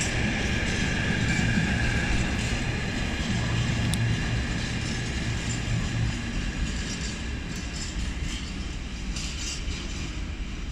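Empty container flat wagons of a freight train rolling past on the rails, with a steady high ring from the wheels. The rolling noise grows quieter as the end of the train draws away.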